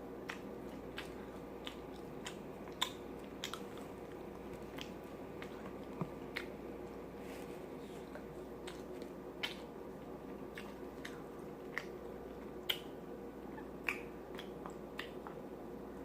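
Close-miked eating: irregular wet mouth clicks and lip smacks, one or two a second, as a person chews chicken wings dipped in ranch dressing. A steady low hum sits underneath.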